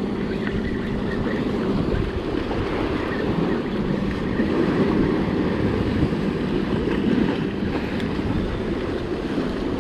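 Sea surf surging and washing against the rocks below, with wind buffeting the microphone.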